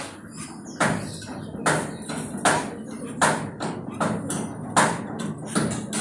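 Caged sunbird hopping about its wire cage and wooden perches: a steady series of sharp taps, a little more than one a second.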